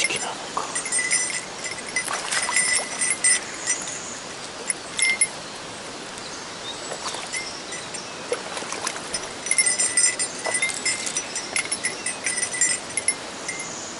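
Small metal bell jingling in irregular short clusters, ringing brightly, over a steady rush of stream water.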